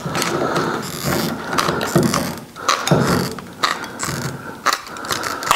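Aviation snips cutting a sheet-metal repair patch: a crisp snip and crunch of the blades about every half second as the cut is worked along.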